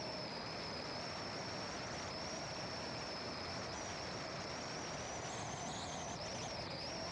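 A car driving at steady speed, with an even rush of road and engine noise, and a continuous high-pitched insect chorus over it.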